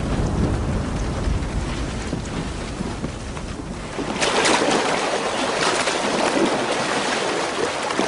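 Elephants splashing in water: a low, rumbling churn, then much louder splashing starting about four seconds in.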